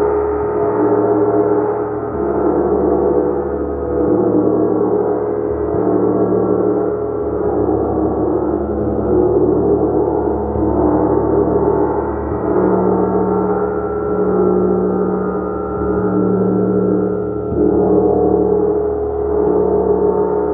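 Gong played continuously in a sustained wash: many overlapping ringing tones that swell and ebb about every two seconds.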